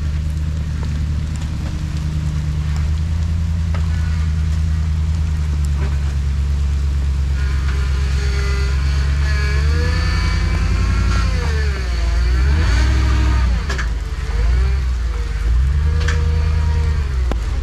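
A 4x4's engine running steadily and hard. About halfway through, it starts revving up and down repeatedly, its pitch rising and falling several times.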